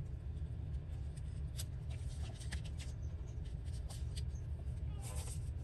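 Paper scraps being handled on a work surface: faint rustling and light taps, with a denser rustle near the end, over a steady low hum.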